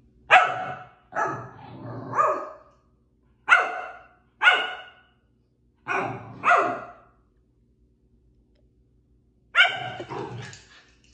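A pomsky barking, about ten sharp barks in clusters of one or two, with a pause of a couple of seconds in the later half: barking at its owner, who has suddenly frozen mid-play.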